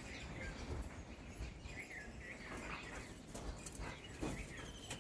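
Small birds chirping in short, high calls, several in quick succession about two seconds in, over a low outdoor rumble.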